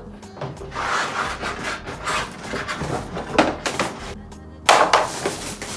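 Cardboard and paper packaging rustling and scraping as an air fryer box is unpacked by hand, with a louder scrape near the end.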